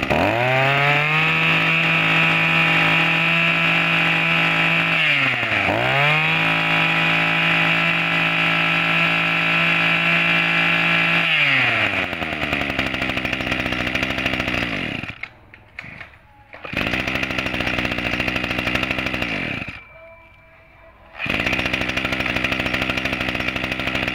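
Echo 24cc two-stroke brush cutter engine revved up to full throttle and held there. It drops back for a moment and revs up again, then settles to a fast idle that briefly falls away twice near the end.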